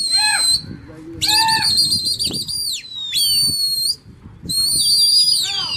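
Loud, shrill whistling from pigeon fanciers working their flock in the air. There are several blasts: some are held on one pitch, one warbles rapidly, and others glide downward. There is a short break at about four seconds.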